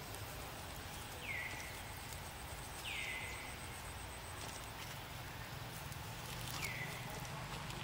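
Three short, high animal calls, each sliding down in pitch and then levelling off, a second or more apart, over steady outdoor background noise.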